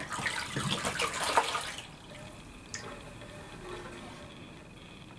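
Water sloshing and splashing in a wooden bowl as a hand works in it, loudest for the first couple of seconds, then dying down to quieter drips and trickles.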